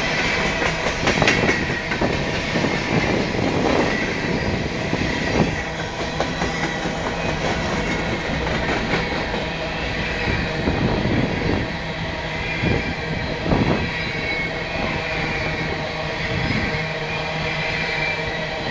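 Freight train of open-top hopper cars rolling past close by: a steady rumble and rattle of steel wheels on rail, with sharp clacks now and then as wheels cross rail joints.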